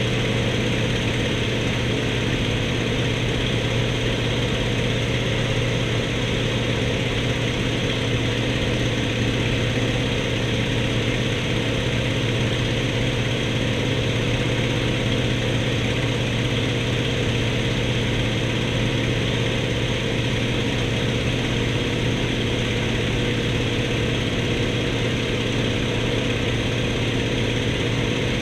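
An-2 biplane's nine-cylinder ASh-62IR radial piston engine running steadily: a constant, loud low drone that does not change.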